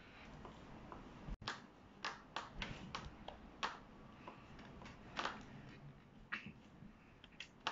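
Thick pomelo rind being pried and torn apart by hand: a faint, irregular run of small snaps and crackles as the peel splits.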